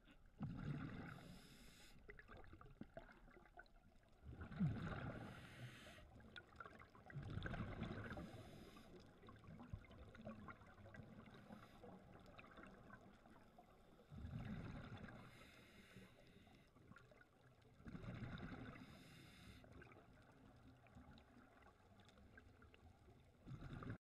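Scuba regulator exhaust bubbles heard underwater through a GoPro housing: a bubbling rush in bursts of a second or two every few seconds as the diver breathes out, with a quiet stretch in the middle.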